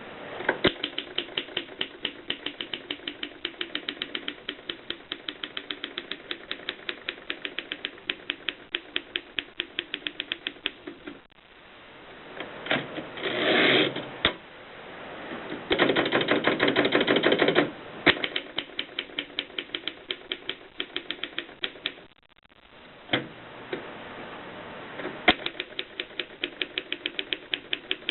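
Mercedes Superba typewriter being typed on: a fast, even run of sharp key strikes, about five or six a second. Two longer, louder rasping stretches come near the middle, and there is a brief pause before the typing resumes.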